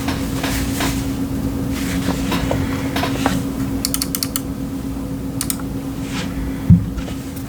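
Scattered keystrokes on a modded CIY Tester 68 mechanical keyboard with stock Akko Jelly Purple switches and Cherry-profile PBT keycaps. There are light clicks, with a quick run of sharper clicks midway and one louder, deeper thump near the end, over a steady low hum.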